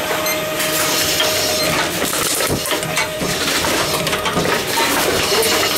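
Envipco ULTRA 48 reverse vending machine taking in plastic bottles fed in quickly one after another: a continuous irregular clatter of bottles being handled and crushed, over a steady machine tone.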